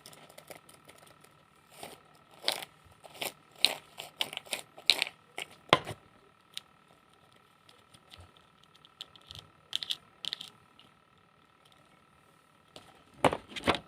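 Irregular short taps, clicks and crinkles, in clusters with pauses between, over a faint steady hum.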